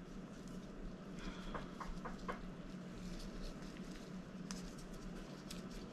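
Faint rustling and light ticks of gloved hands handling a plastic-wrapped cakesickle and the tie for its ribbon bow, over a low steady hum.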